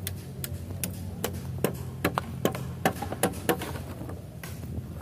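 Sharp knocks repeating about two to three times a second in a fairly even rhythm, like hammer blows on the bamboo framework of a hut under construction, over a steady low hum.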